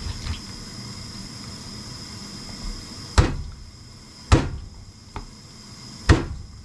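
Kitchen knife chopping down through a soft-shell turtle's joints onto a cutting board: three sharp knocks in the second half, about a second or two apart.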